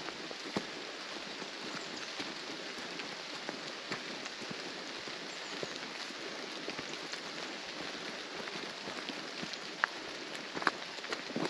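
Steady rain hissing, with many small drops ticking close to the microphone and a few sharper drop hits near the end.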